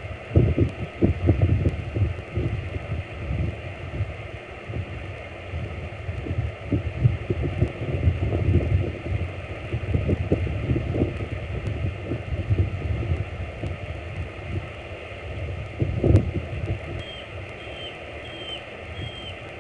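Wind buffeting the microphone in uneven gusts, a low rumble that rises and falls. Near the end a bald eagle gives four short high chirps about half a second apart.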